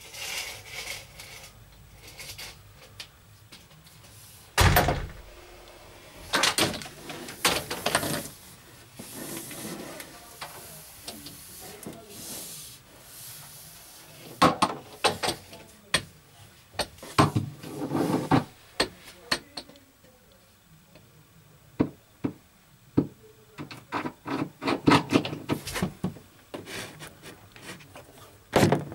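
Irregular knocks, clicks and scraping of hand work on fittings, in clusters with quieter pauses between, the loudest a single heavy knock about four and a half seconds in.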